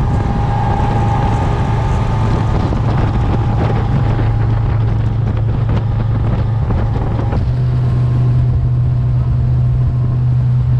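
Motorboat engine running steadily at speed, with wind buffeting the microphone; the engine's drone steps up slightly in pitch about seven seconds in.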